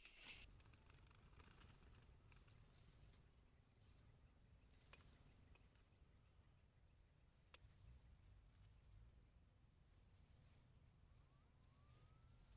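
Faint forest ambience: a steady high-pitched insect drone with a low rumble beneath, broken by two short sharp clicks about five and seven and a half seconds in.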